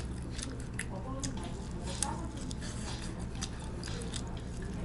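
Close-up chewing and crunching of glazed Korean fried chicken, with many short, sharp crackles of the crisp skin and the wet squish of meat being pulled apart by hand.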